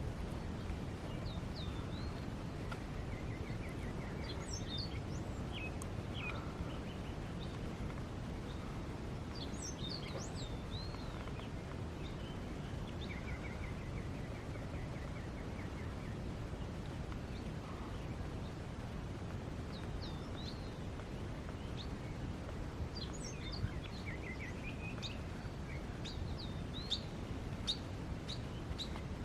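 Wild birds chirping and calling on and off, with two short rapid trills and a flurry of sharp calls near the end, over a steady low outdoor background noise.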